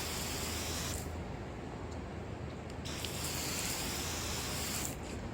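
Windshield wipers sweeping over a wet windshield with a soft watery hiss that swells and fades in turns of about two seconds, without chattering: the glass, cleared of its oil film, holds a layer of water for the blades to ride on.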